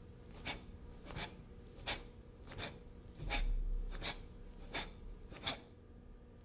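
A person performing a series of quick arm strikes (the Tensegrity 'lobster's strike'): a short, sharp swish with each strike, eight of them evenly spaced about 0.7 seconds apart. A low rumble a little after three seconds in is the loudest sound.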